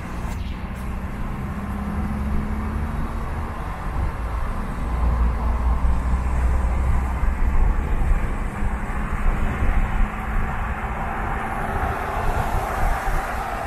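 Car driving on a wet city road: a steady low rumble of engine and road noise with the hiss of tyres on wet pavement, swelling louder near the end.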